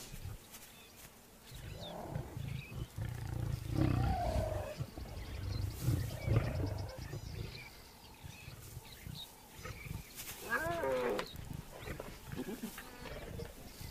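Lioness and her cubs calling: low rumbling grunts, then a short, higher wavering call about ten seconds in.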